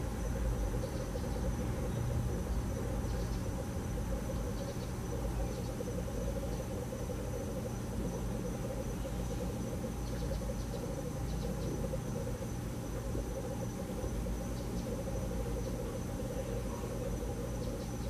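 Room tone through the prayer-hall microphone: a steady low hum with a faint, steady high-pitched tone above it.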